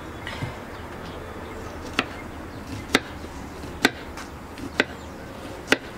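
Kitchen knife cutting through an onion and striking a wooden cutting board: five sharp chops, about one a second, starting about two seconds in.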